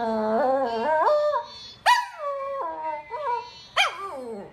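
Small curly-coated dog howling and whining. A long held howl steps up in pitch, then two sharp high cries, about two seconds in and near the end, each slide down in pitch, with shorter whines between them.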